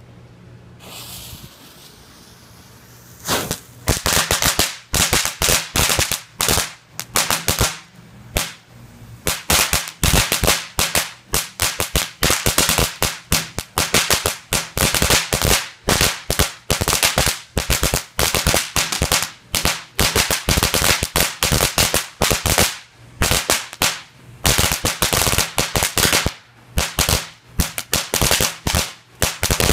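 World Class Cracker Barrel crackling fountain firework: the fuse hisses for a couple of seconds, then from about three seconds in the fountain fires a steady, dense stream of loud crackles, sharp pops coming in rapid clusters.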